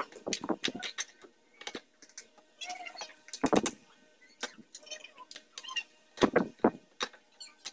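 Hammer working nails out of a wooden sofa frame: irregular metallic clicks and scrapes, with a heavier knock midway and two more in quick succession near the end.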